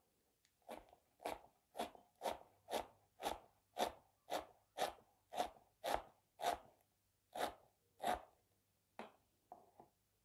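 Kitchen knife chopping fresh coriander on a plastic cutting board: steady chops about two a second, with a few lighter chops near the end.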